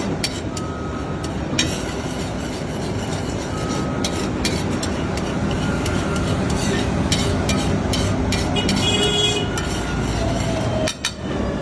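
Steady roadside traffic hum with scattered sharp metallic clicks and a few brief high tones.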